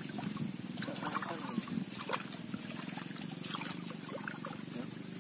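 Shallow muddy water splashing and sloshing in short bursts as bare hands and feet work through a draining ditch bed, over a steady low hum.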